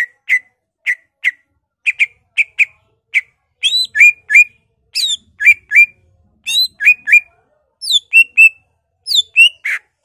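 Male greater green leafbird (cucak ijo) singing a rapid series of short, sharp notes, two or three a second, many of them quick downward-sweeping whistles in the second half.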